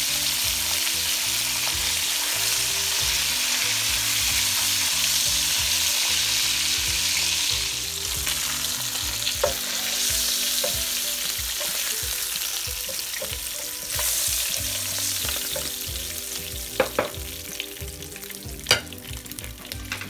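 Hilsa fish pieces and roe sizzling in hot oil in a nonstick wok, stirred and turned with a silicone spatula. The sizzle is loud at first and dies away over the last several seconds, with a few sharp taps near the end.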